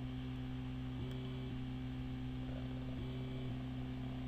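Low, steady electronic drone from a tiny looped slice of a sample in Ableton Live's Simpler, used as granular synthesis, with a slight change in the tone repeating about every two seconds as the loop cycles.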